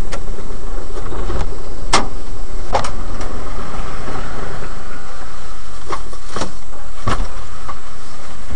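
Truck engine and cab noise: a loud, steady low rumble recorded from inside the cab of a slow-moving crane truck. About six sharp knocks or rattles come at uneven intervals over it.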